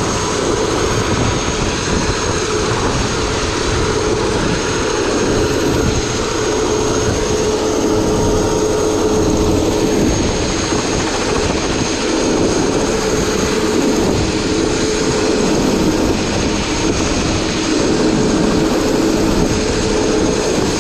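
Turbine helicopter running on its pad: a steady engine drone with a high whine, over a low rumble.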